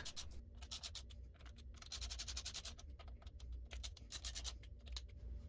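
Hand ratchet clicking faintly in quick runs of rapid clicks as it snugs down the cam support plate bolts.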